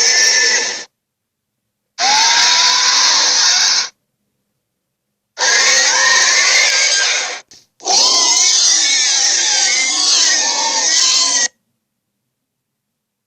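Dragon roar sound effects: four loud, noisy roars of about two to four seconds each, with a wavering pitch running through them. Each cuts in and out abruptly, with dead silence between them.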